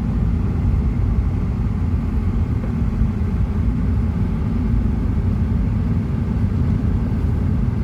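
Steady low engine and road rumble of a moving car, heard from inside the cabin.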